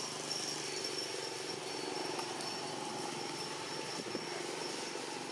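Steady outdoor background: a low, even hum with a thin, steady high-pitched tone above it, and no distinct animal calls.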